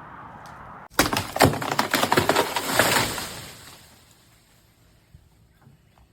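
Wood cracking and crashing as a cut tree comes down, branches snapping and breaking. It starts suddenly about a second in, lasts about two and a half seconds and dies away.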